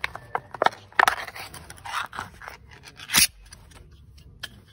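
A small pull-tab can of wet cat food being opened by hand: a few clicks as the tab is worked, then a scraping rasp as the metal lid peels back, and a sharp loud click about three seconds in.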